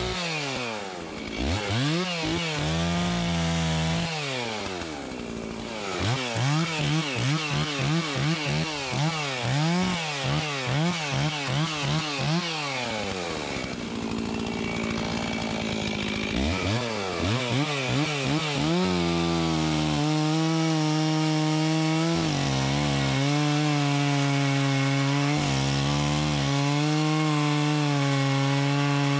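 Stihl 036 two-stroke chainsaw (about 62 cc) blipped up and down in quick revs, roughly one and a half a second, while brushing out small stems. It drops to idle for a few seconds, revs up again, then holds steady full throttle in a long cut into a fir trunk, with two brief dips in speed.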